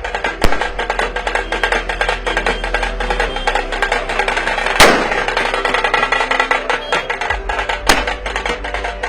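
A string of firecrackers going off in rapid, irregular pops, with louder single bangs about half a second in, near the middle and near the end.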